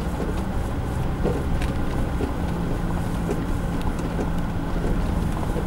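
Diesel van driving slowly, its engine and road rumble heard from inside the cab, with a steady low hum and a few light rattles and clicks.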